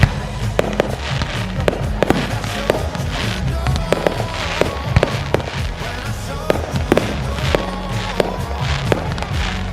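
Fireworks going off in rapid succession, with many sharp bangs and crackles a few times a second, over loud pop music with a steady beat.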